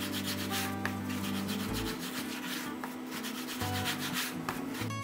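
A rope of yeast dough being rolled out by hand on a floured wooden board: repeated back-and-forth rubbing strokes of palms and dough on wood. Soft background music plays underneath.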